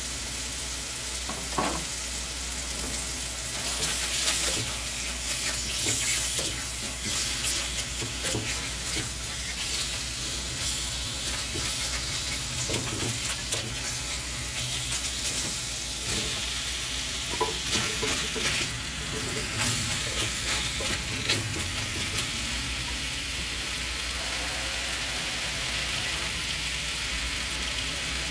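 Food sizzling as it fries in a pan, with irregular clicks and scrapes of stirring throughout.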